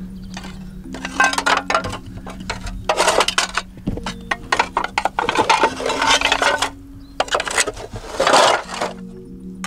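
Metal snake hook scraping and clinking among broken roofing sheets and rubble, in irregular clattering bursts of a second or so, over steady background music.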